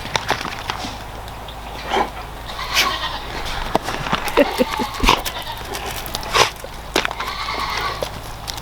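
Pygmy goats bleating in short calls, mixed with many scattered sharp taps and knocks.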